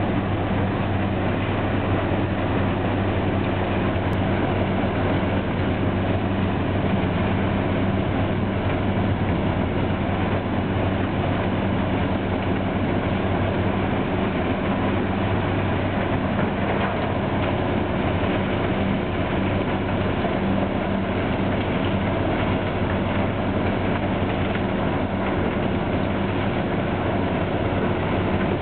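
A mobile stone-crushing plant and a Caterpillar 329D excavator working together: a steady diesel drone with an even low hum under the broad, constant rumble of rock going through the crusher and its conveyors.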